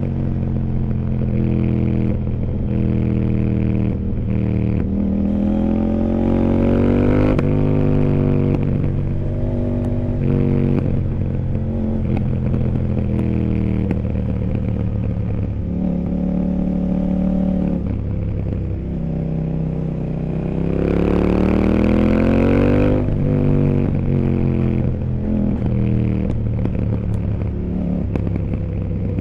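CFMOTO 800NK Sport's parallel-twin engine heard from onboard, pulling hard through the gears several times, rising in pitch, then dropping back between pulls. The longest, loudest pull comes about two-thirds of the way in, with a rush of wind over it.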